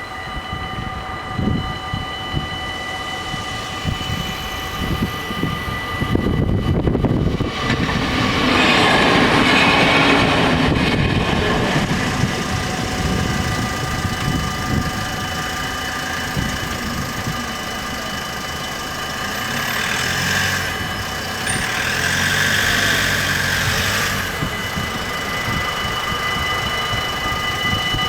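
Level-crossing warning bells ringing without a break while a passenger train rushes past the crossing, loudest about eight to twelve seconds in. A second swell of train noise comes about twenty seconds in.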